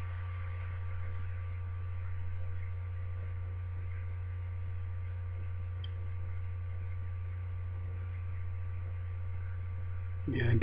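Steady low hum with a few faint, higher steady tones above it.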